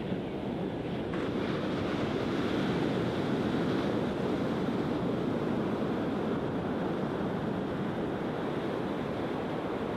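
Surf breaking and washing up a flat sandy beach: a steady rush of waves that swells slightly a couple of seconds in.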